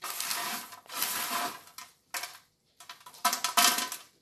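Dried comfrey root pieces rustling and rattling on parchment paper in a metal baking tray as a hand scoops and turns them, in four short bursts, the last one, about three seconds in, the loudest.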